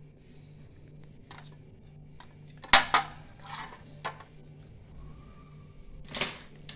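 Household clatter of dishes and utensils: a scattered series of small clinks and knocks, the loudest pair near the middle, over a faint low hum.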